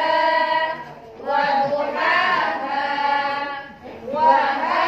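A class of voices reading Arabic syllables aloud in unison, chanted to a steady, drawn-out recitation tune with the long vowels held. The tune is the Ummi method's reading tune. The voices come in three phrases separated by short breaths, one breaking off just before a second and another just before four seconds.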